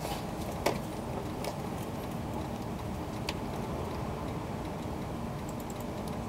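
Steady low hum inside an E2-series Shinkansen car standing at a station platform, with a few sharp clicks, one under a second in and another around three seconds in.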